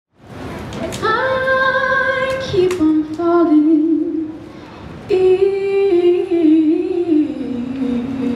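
A female vocal trio singing into microphones in long held notes. A first phrase starts about a second in and breaks off just before halfway, then a second phrase steps down in pitch.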